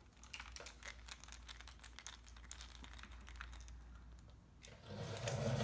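Faint, irregular light clicking and ticking of small parts being handled: a motorcycle's left handlebar switch housing and grip hardware being worked apart by hand. Near the end there is a brief, louder low hum.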